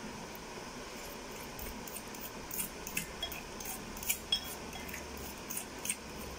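Metal fork stirring mashed banana and sugar in a glass bowl, tapping and scraping against the glass in quick, irregular clinks that start a couple of seconds in.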